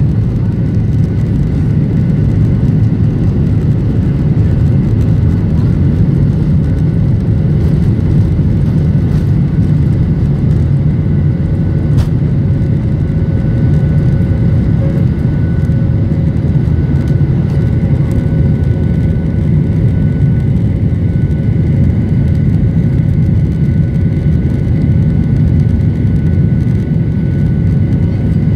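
Cabin noise of a Boeing 737-900ER heard from a window seat beside the engine: its CFM56-7B turbofans at take-off power through the take-off roll and climb-out, a loud steady rumble with faint steady whining tones above it. A single brief click comes about twelve seconds in.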